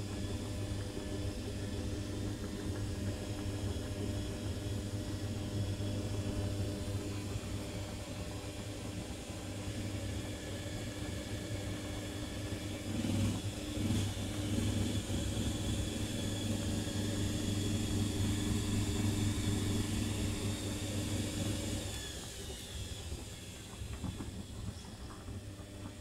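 Currys Essentials washing machine in its load-distribution stage before a spin: the drum motor hums steadily as the drum turns with sudsy water swishing inside. About four seconds before the end the motor hum stops as the drum slows, leaving the water swishing.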